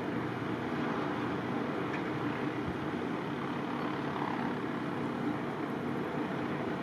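Steady running of a motor vehicle's engine, a constant low hum under an even hiss, with no change in pitch or level.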